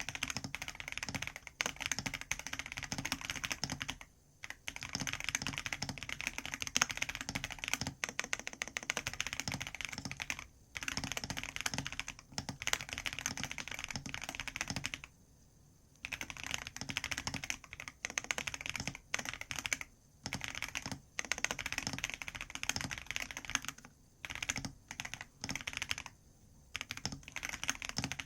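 Fast typing on a computer keyboard, in runs of rapid key clicks broken by several short pauses.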